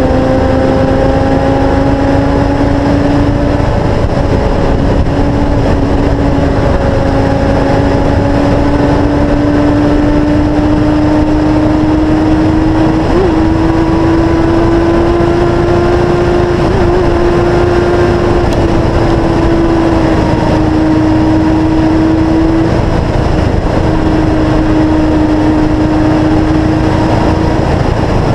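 Sportbike engine running at a steady high speed, its note held fairly even and creeping slowly higher with a few small steps, under heavy wind rush on the microphone of a motorcycle-mounted camera.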